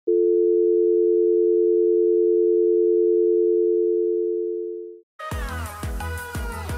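Telephone dial tone, a steady two-note tone held for about five seconds and fading out near the end. Just after it stops, music with a strong beat starts.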